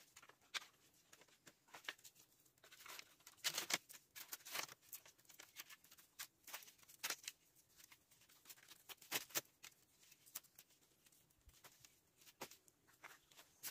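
Firewood sticks knocking and a thin cord rustling and scraping as a bundle of sticks is tied by hand: scattered, irregular light clicks and rustles, a few louder ones about a third of the way in and again past the middle.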